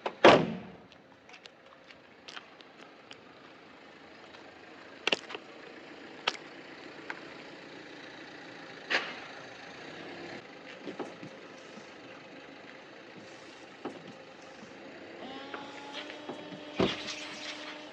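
Knocks and clicks from work on a car: a loud, heavy thump at the start, then a few sharp clicks. Near the end a steady hum of several tones sets in, with one sharp knock.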